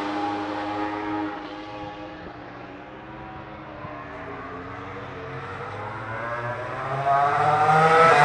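Racing motorcycle engines at high revs passing on a race circuit: one bike fades away over the first two seconds, then another approaches with rising pitch and gets loud near the end.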